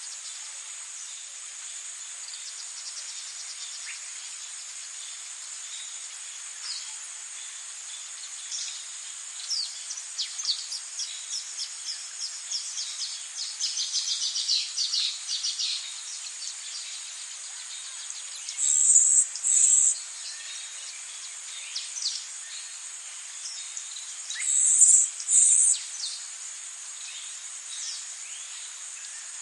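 Crickets or other insects keeping up a steady high-pitched trill, with birds chirping over it in a quick run of short calls. Twice there is a louder pair of sharp high calls.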